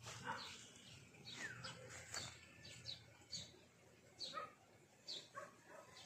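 Faint, short high-pitched animal calls repeated at irregular intervals, several of them falling in pitch.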